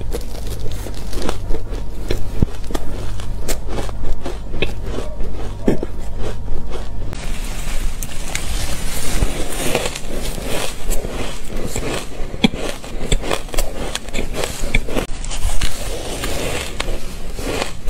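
Close-miked chewing and crunching of shaved ice dusted with matcha powder: dense, irregular crackly crunches throughout, with a steady low hum underneath for the first half.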